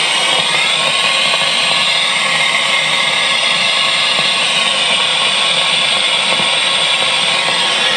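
Fender Hot Rod DeVille 212 tube guitar amp putting out a loud, steady cracking noise with a hissy edge. It is the sign of failing tubes: replacing three tubes cured it.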